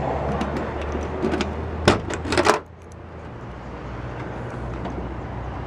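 A key turning in the 1991 Chevrolet Caprice's trunk lock, metal clicking and rattling, with a few sharp clicks around two seconds in as the latch lets go and the trunk lid comes open. A steady low hum runs underneath.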